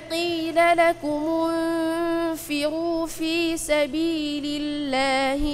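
A boy's voice reciting the Quran in melodic tajweed chant, holding long notes with wavering ornaments, broken by short pauses.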